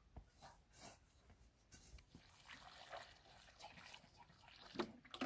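Faint scrapes and rustles of a shovel in straw and earth, then, near the end, water beginning to pour from a plastic jerrycan onto the straw-and-earth heap as mud plaster is mixed.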